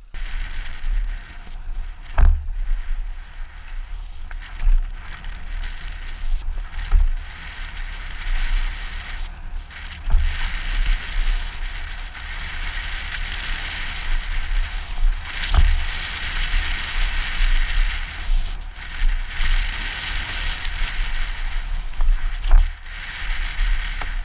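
Mountain bike descending a leaf-covered dirt trail, heard from a helmet-mounted camera: a steady rush of tyre and wind noise with low wind rumble on the microphone. Several sharp knocks come as the bike hits bumps.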